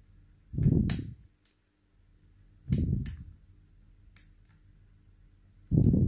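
Sharp little metal clicks from a thin lock pick working the side pins inside an ASSA Ruko Combi Plus cylinder held in a vise. Three dull thumps come a couple of seconds apart.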